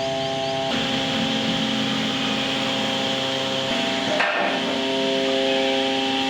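CNC router spindle cutting wood: a steady whine over a hiss of cutting noise, its pitch and tone shifting about a second in and again past three and a half seconds, with a brief break a little after four seconds.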